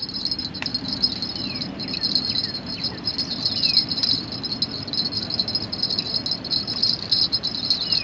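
Insects trilling in a steady, high, fluttering chorus, with a few short falling chirps from birds.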